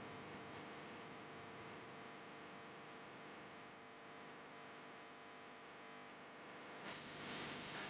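Faint steady electrical hum over low background noise. About seven seconds in, a louder, hiss-like noise sets in suddenly.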